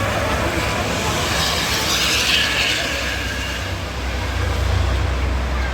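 A heavy vehicle, likely a bus, passing at speed close by. Its tyre and road noise rise to a rushing peak in the middle, and a low engine rumble swells toward the end.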